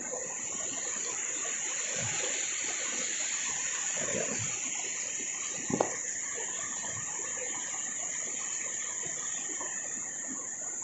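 River water running steadily over rocks, with a constant high insect drone over it. A single short knock about six seconds in.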